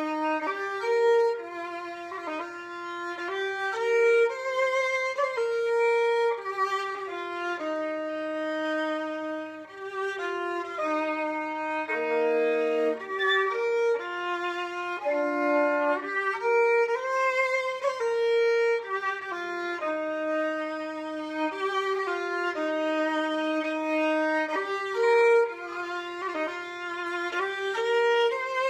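Violin playing a hymn arrangement in slow, held notes moving stepwise, mostly in two-part harmony.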